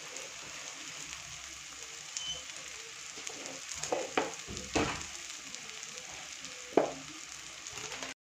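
Onions and green capsicum sizzling steadily in an aluminium kadai, with a few sharp knocks around the middle and a louder one near the end.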